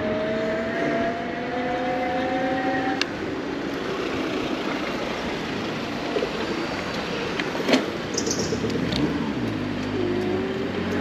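Electric bicycle conversion-kit motor whining and rising in pitch as it accelerates, over steady rushing wind and road noise from riding. The whine fades about three seconds in and returns, rising again, near the end, with a few sharp clicks between.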